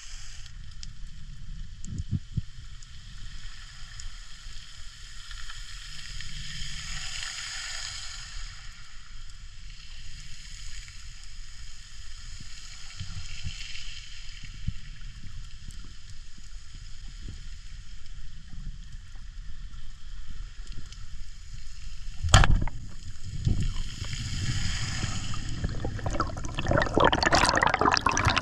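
Underwater ambience with a steady low rumble and a crackling hiss. About 22 seconds in a single sharp crack sounds, the speargun firing. Near the end comes a rush of bubbling as the diver breathes out and rises.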